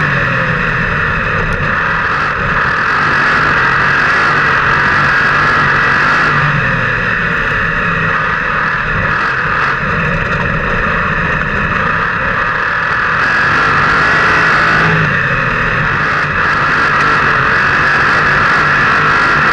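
360 sprint car's V8 engine running hard at racing speed, heard from an onboard camera in the cockpit, its pitch rising and falling slightly.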